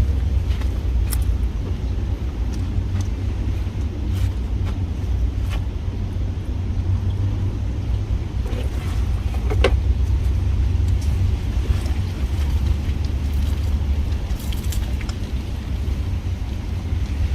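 Wind buffeting the microphone as a steady low rumble, with a few faint clicks and taps.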